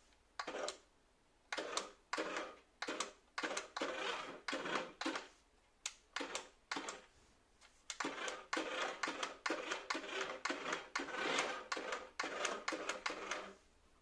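Small toy remote-control car's electric drive motors and plastic gearing whirring and rattling in short start-stop bursts, each lasting under a second. In the second half the bursts come quicker and closer together. The whir is somewhat loud for a toy of this size.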